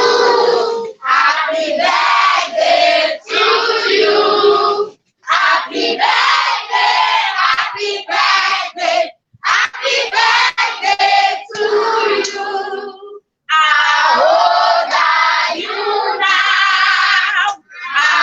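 Group of children singing together, cut by a few abrupt short silences.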